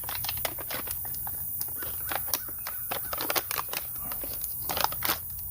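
Plastic packaging of a tire plug kit being torn and pried open by hand: a quick, irregular run of crinkles, snaps and clicks.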